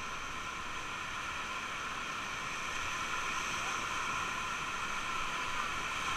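Rushing whitewater of a river rapid heard from aboard an inflatable raft running through it: a steady, unbroken hiss of churning water.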